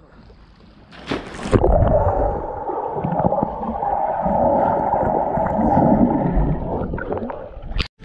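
A person jumps into a swimming pool with a splash about a second in, then muffled rushing and bubbling water of someone swimming, heard from under the water. The sound cuts off sharply near the end.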